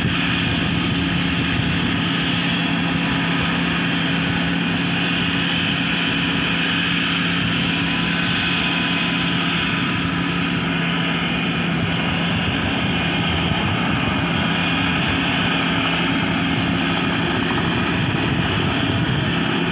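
A Kaset Pattana 'Ngoen Mee' rice combine harvester, powered by a Hino diesel engine, runs steadily under load while harvesting lodged rice. It makes a continuous engine and machinery drone that stays even throughout.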